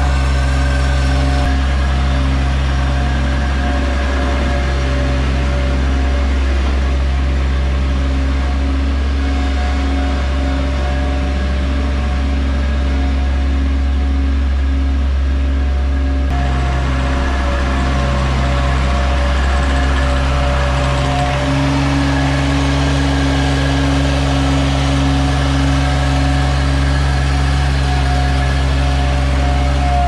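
Bobcat MT100 mini skid steer's engine running steadily up close, with small changes in engine speed about halfway through and again a few seconds later.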